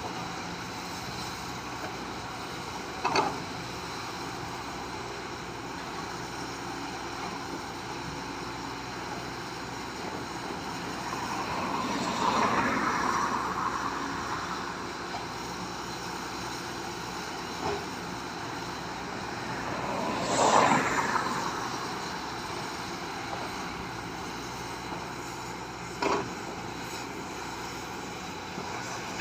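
Steady background noise as two vehicles pass one after the other, each swelling over a couple of seconds and fading away, the second the louder; three short knocks fall in between.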